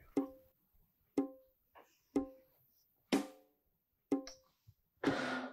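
Background music of sparse percussion: single hits about once a second, each with a short pitched ring, and a longer, noisier hit near the end.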